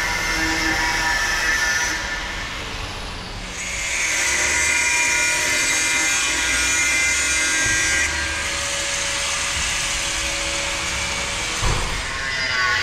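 Angle grinder with a cutoff wheel cutting through the steel skirt of a concrete pump hopper: a continuous grinding, its pitch and loudness shifting as the wheel bites, dipping briefly about two seconds in. A short low thump comes about a second before the end.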